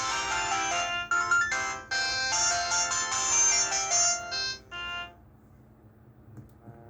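Huawei ETS688 phone playing an electronic ringtone, a quick melody of bright beeping notes that stops about five seconds in.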